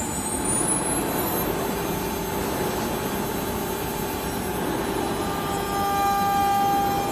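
Woodworking CNC router running under test, its spindle whine rising in pitch over the first second or so, then a steady machine hum; a steady tone with overtones comes in about five seconds in.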